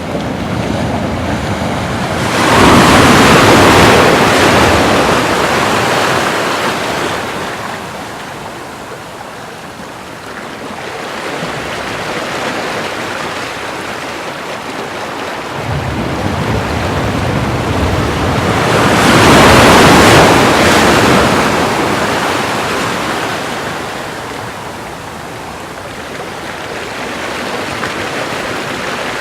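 Ocean waves breaking on the shore with a steady background wash. Two big waves crash and surge up, one a few seconds in and another about two-thirds of the way through, each fading away over several seconds.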